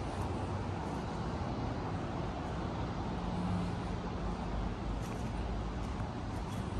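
Steady outdoor urban background noise: a low, even rumble of distant road traffic.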